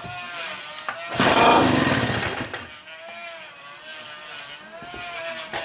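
One pull on the recoil starter of a vintage TERHI 5 hp two-stroke outboard motor, about a second in. The engine spins over noisily for about a second and a half and winds down.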